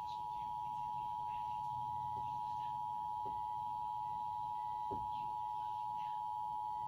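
Emergency Alert System attention signal: the two-tone alert (853 and 960 Hz sounded together) held as one steady, unchanging tone. It marks the start of the EAS National Periodic Test message.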